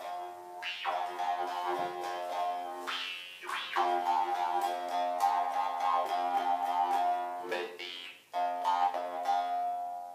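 Jaw harp played: a twanging steady drone with a wah-like melody gliding above it. The playing breaks off briefly twice.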